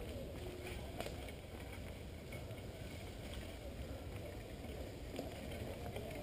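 Mountain bike rolling along a dirt forest singletrack: a steady low rumble of tyres on the trail and wind on the bike-mounted camera's microphone, with a sharp click about a second in.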